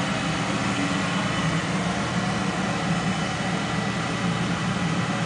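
Sand pouring steadily into the load bucket hanging beneath a balsa test tower, an even rushing hiss with a low hum under it.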